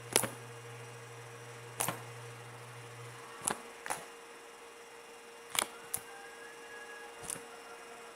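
Slime being pressed and folded close to the microphone, giving sharp clicking pops as air pockets burst, about seven of them at uneven intervals.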